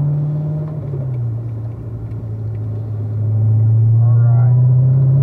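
Supercharged LT4 V8 of a C7 Corvette Z06 heard from inside the cabin at low revs. About a second in its note steps down and goes quieter as the car shifts up from second to third gear, then from about three seconds it gets louder again and slowly rises in pitch as throttle is fed back in.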